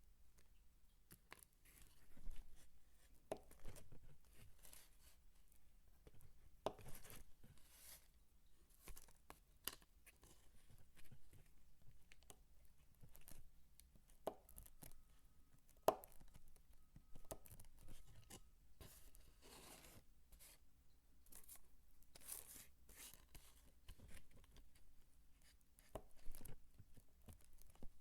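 Dry soap being cut and broken up by hand: soft, irregular scratchy crunches with sharp little clicks, one standing out about halfway through.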